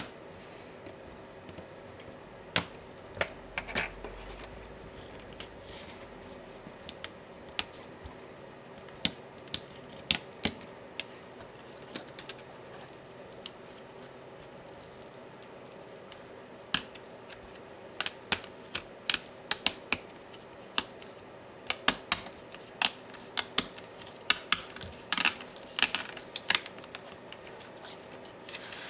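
Sharp clicks and taps of small tools against the plastic and metal parts of an HP ZBook Firefly 14 G7 laptop being taken apart. They come singly at first and then in quick clusters from about two-thirds of the way in.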